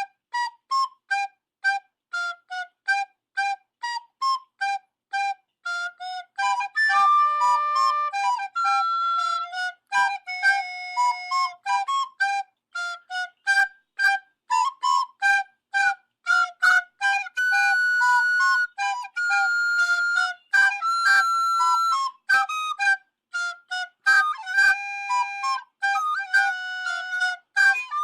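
Solo flute playing a quick, bouncy tune of short detached notes, with a few longer held notes in between.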